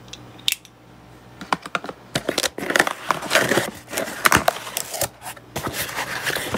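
Cardboard shipping box being opened by hand, its flaps and packing rustling and scraping. There is a single click about half a second in, then from about a second and a half a busy run of rustles, scrapes and small knocks that grows louder.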